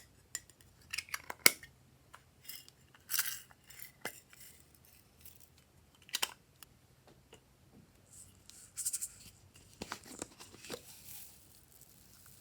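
Glossy slime being squished and worked by hand, giving irregular wet clicks, pops and short crackles, the loudest pop about a second and a half in.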